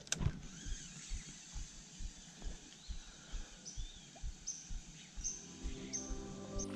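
Rainforest birds calling: short repeated high whistles and small chirps. Under them runs a soft, regular low thumping about twice a second. Background music fades in near the end.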